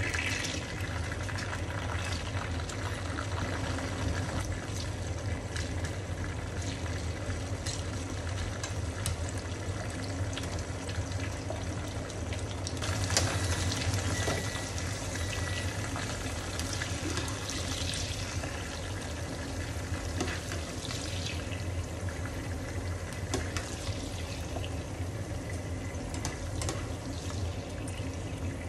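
Snap peas deep-frying in olive oil in a small pan: a steady sizzle with scattered crackles from the bubbling oil, louder for a moment about halfway through.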